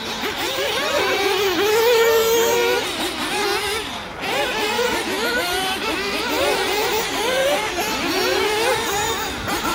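Several 1/8-scale nitro RC buggies racing together, their small two-stroke glow engines revving up and down as they accelerate and brake around the track. The overlapping engine whines keep rising and falling in pitch.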